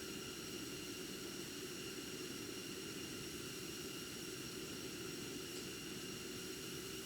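Steady low hiss and hum with a couple of faint high, steady tones, unchanging throughout, with no distinct tool or work sounds.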